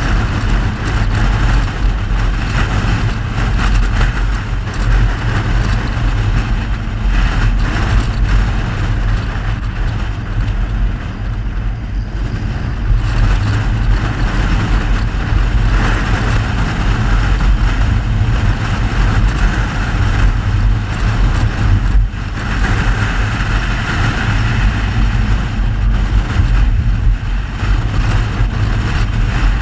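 A Mercedes-Benz W126 on the move: steady, loud driving noise of engine, tyres and wind, heaviest in the low end with a hiss above it.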